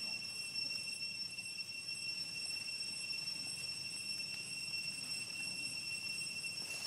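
Insects, likely cicadas, droning as one steady high-pitched whine that does not change.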